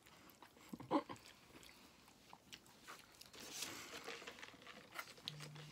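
Quiet chewing and crunching of fried food, with small mouth clicks scattered throughout and a brief vocal sound about a second in.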